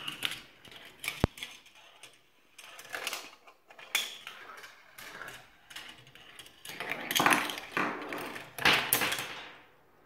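Marbles rolling and clattering through a plastic GraviTrax PRO Vertical marble run: a busy rattle of clicks and sharp knocks, with louder stretches of rolling and clacking near the end that then die away.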